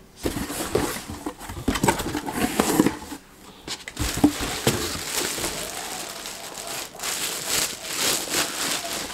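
Clear plastic bag crinkling and rustling as a bagged football helmet is handled and lifted out of a cardboard box, with scattered small clicks and taps throughout.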